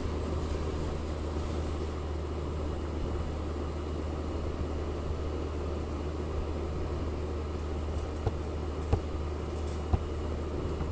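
Steady low mechanical hum, with three small sharp clicks near the end.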